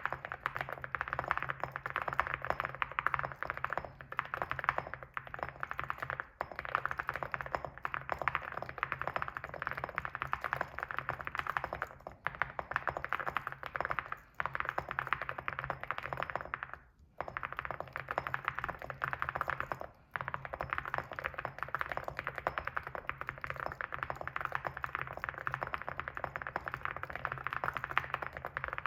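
Fast continuous typing on an Evo75 mechanical keyboard with ceramic keycaps: a dense run of key clicks with a few brief pauses, the longest about two-thirds of the way through.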